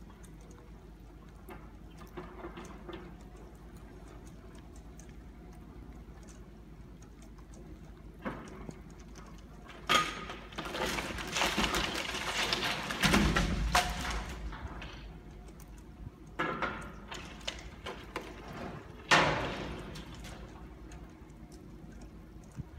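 Demolition excavator's grab tearing apart a building's roof and window frames: crashing and crunching of breaking structure. The loudest stretch begins with a sharp crash about ten seconds in and runs for about five seconds, with a heavy thud in the middle; more crashes come about sixteen and nineteen seconds in, over a low steady hum.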